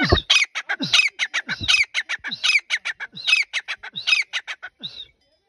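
Grey francolin (teetar) calling: a rapid run of short, harsh calls, about five a second, that stops near the end.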